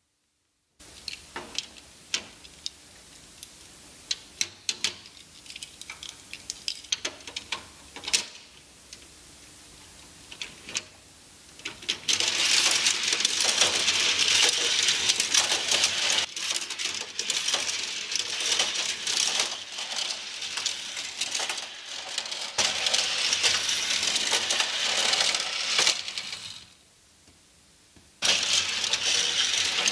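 Die-cast toy cars clicking and clattering on a plastic parking-garage playset: scattered separate clicks at first, then about twelve seconds in a dense, continuous rattle that stops briefly near the end and starts again.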